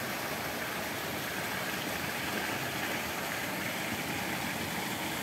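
Steady rush and splash of water pouring from an inlet pipe into a fish pond.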